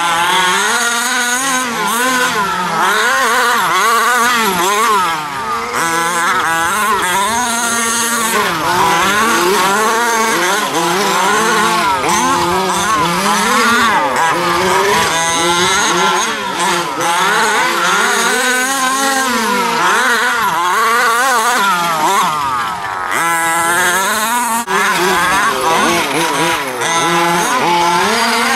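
Two-stroke petrol engine of a 1/5-scale RC off-road truck running hard, its pitch rising and falling over and over as the throttle is opened and closed around the track.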